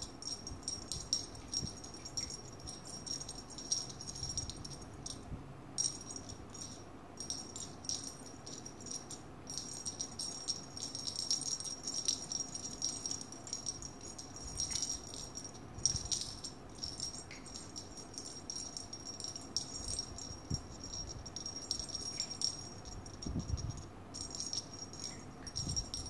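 Small jingle bell on a cat wand toy jingling in quick shakes as a kitten bats at it, with a few brief pauses.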